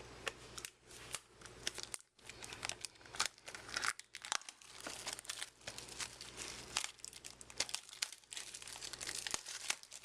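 Trading-card box packaging being handled and opened by hand: irregular crinkling and tearing crackles throughout.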